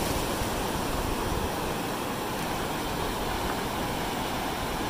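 Steady rush of ocean surf breaking on the beach.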